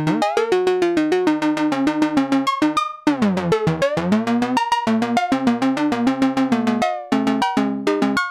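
Mutable Instruments Plaits macro-oscillator played by a step sequencer: a fast, even run of short synth notes, several a second. The tone sweeps down and back up about three seconds in, and again near seven seconds, as its knobs are turned.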